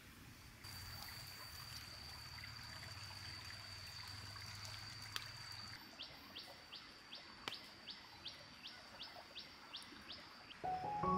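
Faint forest wildlife calling: a steady, high, unbroken trill for about five seconds, then a run of about a dozen short rising calls, about three a second. Music begins near the end.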